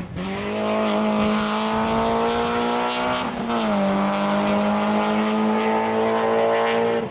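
Peugeot 306 S16 rally car's four-cylinder engine pulling hard at high revs, its pitch climbing slowly, with a quick drop in pitch about three and a half seconds in as it shifts up a gear, then climbing again.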